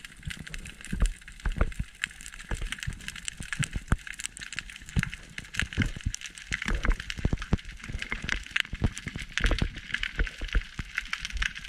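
Underwater sound heard through an action camera's waterproof housing: many irregular clicks and crackles over a steady hiss.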